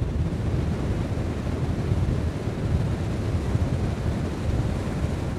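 Wind rumbling on the microphone over the wash of surf on the shore: a steady, low, noisy rush with no distinct events.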